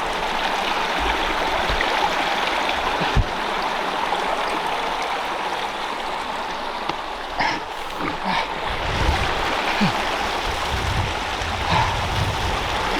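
Rushing river water, a steady rush, with a few low bumps in the second half.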